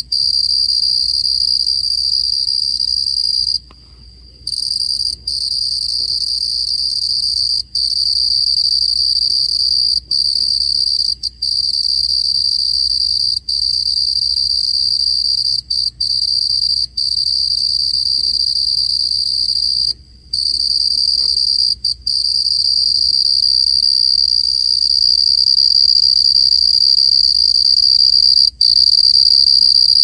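A cricket singing loudly close up: a steady, high-pitched trill broken only by short gaps, with two longer pauses, about four seconds in and around twenty seconds in.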